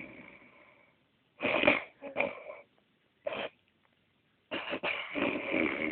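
A man snoring. A rasping snore fades out about a second in, a few short breathy snorts follow, and another long snore starts near the end.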